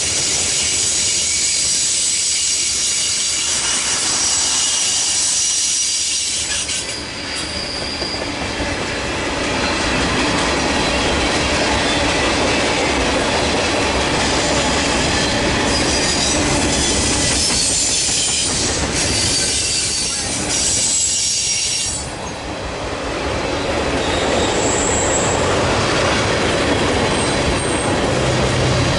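Freight cars of a passing train (covered hoppers and tank cars) rolling by close at speed: a loud, steady rumble and clatter of steel wheels on rail with a high squeal, easing briefly twice.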